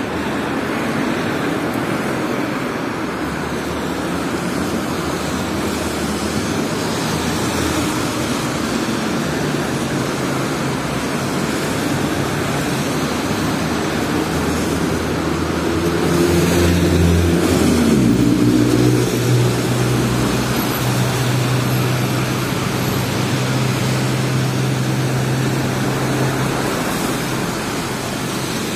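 City street traffic on wet roads: steady noise of cars and tyres. About two-thirds through, a large vehicle's engine rises in pitch, then settles into a steady low hum that stops near the end.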